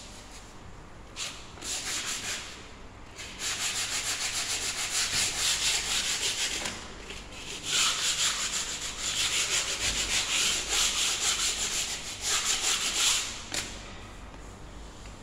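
A wall surface being sanded by hand with sandpaper in fast back-and-forth scrubbing strokes, a dry rasping hiss, as surface preparation before painting. It comes in three spells, a short one then two long ones, and stops a couple of seconds before the end.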